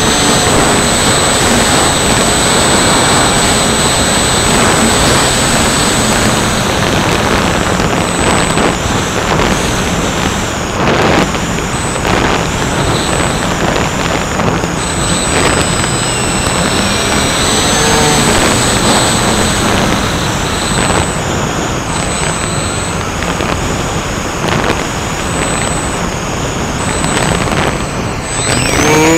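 Steady rush of wind over the onboard camera's microphone on a twin-motor electric RC plane in flight, mixed with the buzz of its motors and propellers. Faint tones glide up and down partway through, and the loudness dips briefly near the end.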